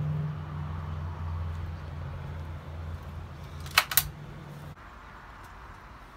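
A steady low hum that starts and stops abruptly. About four seconds in come two sharp clicks in quick succession, fitting a handgun being handled or cocked.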